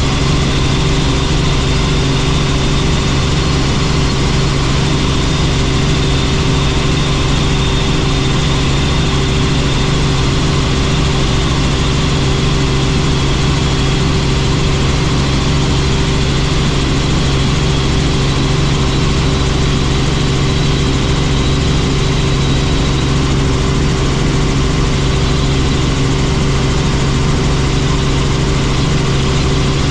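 Helicopter turbine engine and rotor running steadily in flight: an unbroken low drone with a faint high whine above it.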